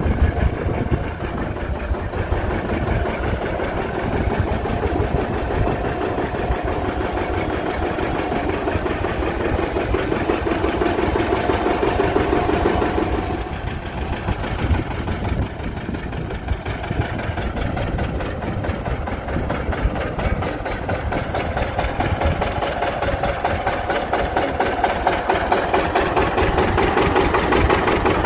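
1951 John Deere R's two-cylinder diesel engine idling, with a steady pulsing beat. It dips briefly about halfway, then grows gradually louder toward the end.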